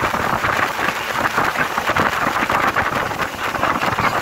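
Steady rushing noise of a boat under way, with wind buffeting the microphone.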